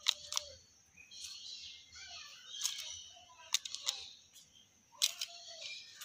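Hill myna calling: a few sharp, loud clicks, two of them followed by a short low whistled note, over a steady high chatter.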